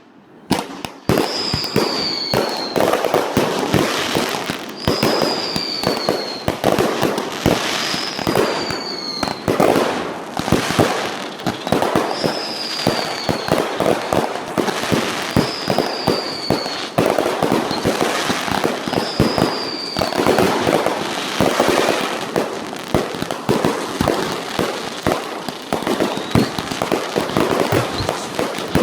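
Fireworks finale barrage: a dense, unbroken run of bangs and crackling. A short falling whistle comes in about every three seconds, six times, over the first two-thirds.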